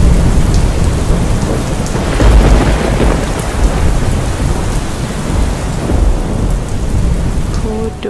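Heavy rain pouring down with thunder rumbling through it, the loudest roll about two to three seconds in.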